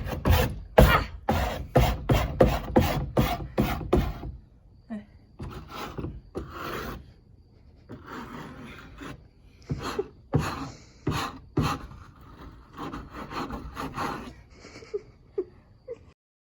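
Rapid scraping strokes, about three a second, for the first four seconds, then slower, irregular rubbing and scraping, typical of old crumbling foam being scraped or brushed off a car's headliner board.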